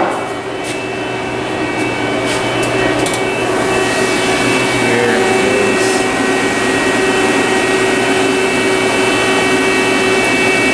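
Elevator machine-room equipment running: a steady whirring hum with several steady whine tones over it, growing slightly louder about a second in.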